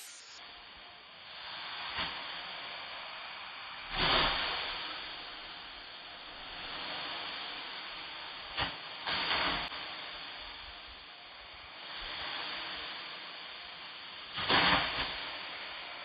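Dry rice straw being beaten and tossed with long wooden sticks in hand threshing: a steady rustling hiss of straw, swelling into louder swishing strikes about 4 s, 9 s and near the end.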